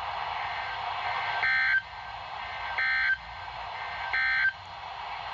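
Three short bursts of EAS/SAME digital data tones, about 1.4 s apart, over a steady radio hiss: the end-of-message code that closes a NOAA Weather Radio required weekly test.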